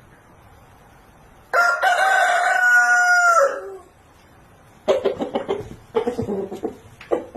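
A rooster crows once, a loud held call of about two seconds that drops away at the end, followed about a second later by a run of short, rapid clucks.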